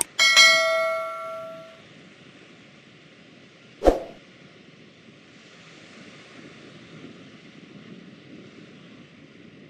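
Subscribe-button animation sound effects: a bright bell chime rings out and fades over about a second and a half, and a short sharp pop comes about four seconds in. Faint steady wind noise lies underneath.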